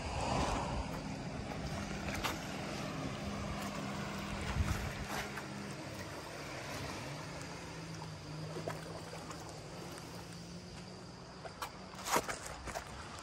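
A boat engine droning steadily as a low hum that drops away about halfway through and comes back, over a soft wash of wind and water. A couple of sharp clicks come near the end.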